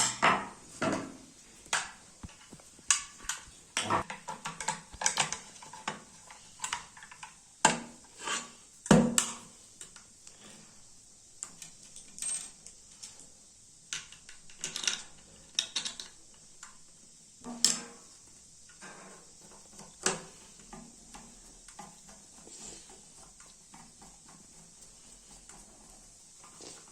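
Irregular clicks, clinks and knocks of plastic and metal parts being handled as a clothes iron is put back together, busiest in the first half and thinning out toward the end.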